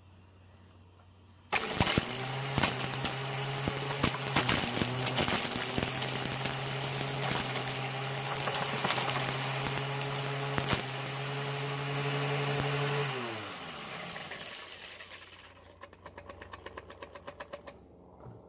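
A 4.5-inch SKIL angle grinder drives a homemade chain-mill rock crusher. It is switched on about a second and a half in and runs at a steady pitch, with rock clattering sharply inside the steel pot as the spinning chain pulverizes it. About thirteen seconds in it is switched off and its pitch falls as it winds down, followed by a fast, light ticking near the end.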